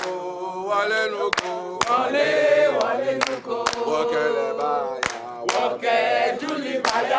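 A small group of voices chanting a campaign song together, with sharp hand claps about once every second or so.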